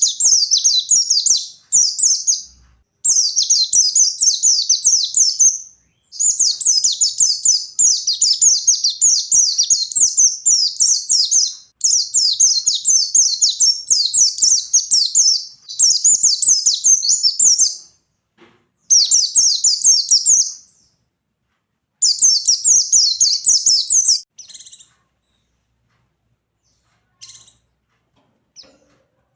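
A pleci (white-eye) sings its fast, continuous 'ngalas' song: loud, high-pitched rapid twittering in long phrases of several seconds, broken by short pauses. The song stops a few seconds before the end, and only a few brief chirps follow.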